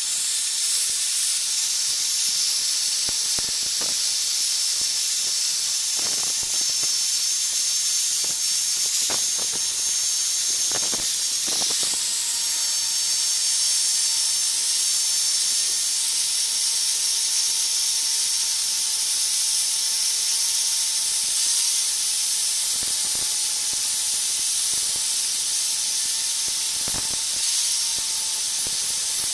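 Angle grinder running at steady speed with its abrasive disc grinding rust off an old steel knife blade: a steady high-pitched hiss over a constant motor whine, with a few faint scrapes.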